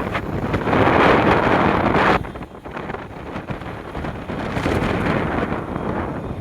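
Wind buffeting the microphone of a moving motorcycle rider, with the motorcycle's running and road noise underneath. The wind rush drops sharply about two seconds in, then carries on quieter.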